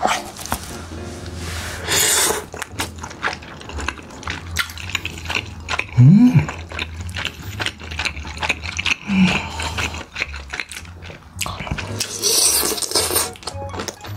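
Close-miked eating sounds of spicy tteokbokki: wet chewing, utensil clicks and two noodle slurps, one about two seconds in and one near the end, over background music. A short rising hum from one of the eaters about six seconds in is the loudest moment.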